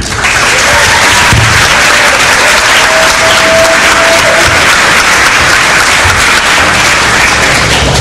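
Audience applauding loudly and steadily, with a short held tone near the middle, stopping abruptly at the end.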